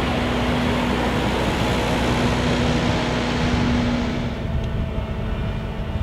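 Fendt 718 Vario tractor's diesel engine running steadily under load, with a steady hum under a broad hiss; the hiss thins out a little after four seconds in.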